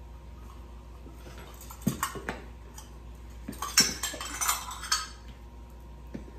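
Metal measuring cup clinking and scraping against the flour container as flour is scooped out, a few sharp clinks about two seconds in and a busier run of clinks and scraping near the middle.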